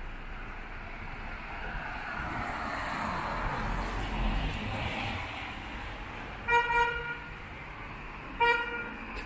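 A vehicle horn tooting: two quick beeps about six and a half seconds in, then one more about two seconds later. Under it, the hiss of traffic passing on a wet road swells and fades.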